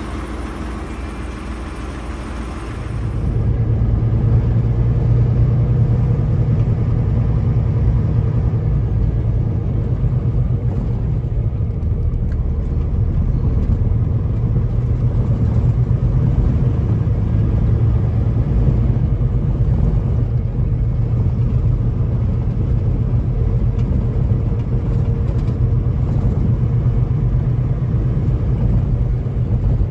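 A semi-truck's diesel engine running steadily, heard as a low, even rumble in the cab. It gets louder about three seconds in.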